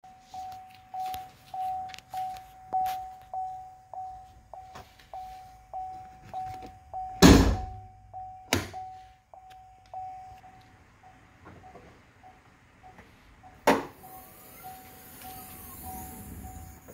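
Chevrolet Camaro's warning chime beeping about twice a second, fainter in the second half. Midway, the hood release lever is pulled and the hood pops off its latch with a loud thunk, followed by a second clunk; another sharp knock comes later.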